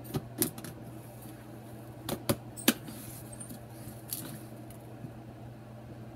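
A few short, sharp clicks and knocks of hard plastic being handled as the animatronic's head base is worked into place, the strongest three about two seconds in, over a steady low hum.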